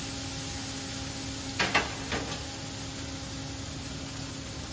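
Sirloin steak sizzling steadily as it sears in a hot pan, over a steady background hum. A couple of short metal clacks, about a second and a half to two seconds in.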